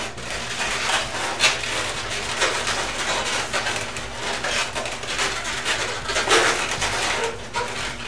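Inflated latex twisting balloons (260Qs) squeaking and rubbing against each other as a balloon scrap is knotted around them, in irregular squeaks and rustles.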